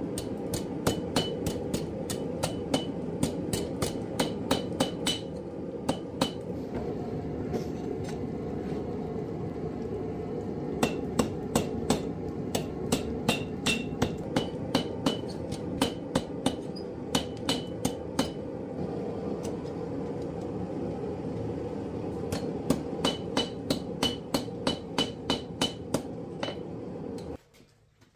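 Hammer striking steel on an anvil in three runs of quick blows, about three a second, each blow with a short metallic ring. A steady low rushing noise runs underneath and cuts off suddenly near the end.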